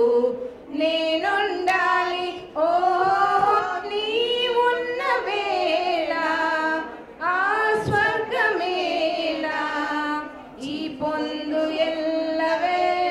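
Women's voices singing a Telugu song, in phrases of a few seconds separated by short breaths.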